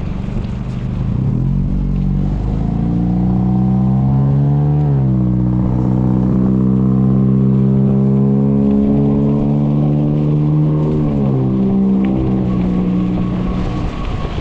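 Electric bike hub motor whining under power: the pitch climbs as the bike picks up speed, holds steady, dips once and shifts again near the end. Low wind rumble runs underneath.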